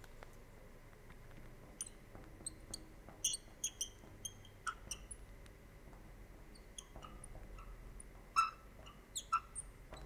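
Chalk writing on a blackboard: faint, irregular short taps and squeaks of the chalk tip as letters are formed, with a slightly louder tap about eight and a half seconds in.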